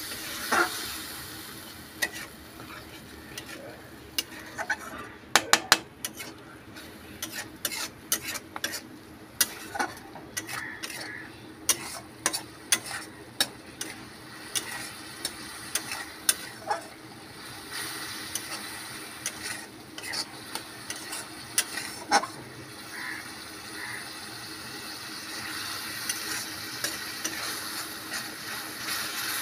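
Metal spatula scraping and clacking against a steel kadai as onion-tomato masala is stirred and sautéed over a steady sizzle. The clacks come thick and fast for several seconds in the first half, then thin out, while the sizzle grows louder near the end.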